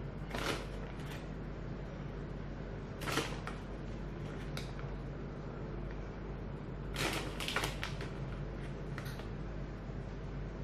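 Crinkling of a plastic bag of shredded cheese as a hand reaches into it. Short rustles come about half a second in, around three seconds, around seven seconds and near the end, over a steady low hum.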